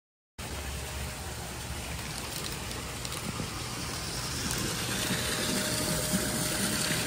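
Pool water feature spilling water into a swimming pool: a steady splashing rush that starts suddenly about half a second in and grows a little louder.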